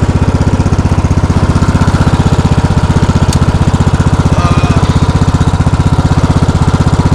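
Riding lawn mower engine running at a steady speed with a fast, even pulse.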